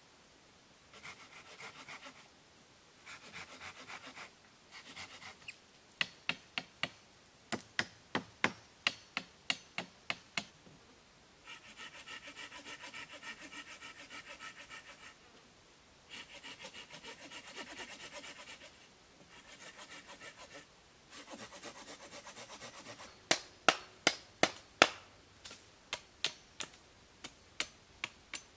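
Knife blade sawing back and forth across a wooden pole in several stretches, broken twice by runs of sharp wooden knocks about three a second as the pole end is cut and notched.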